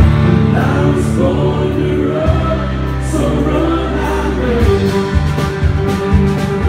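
A live band is playing, amplified through a PA: several voices sing together over bass, fiddle and guitars. The drum hits grow more prominent near the end.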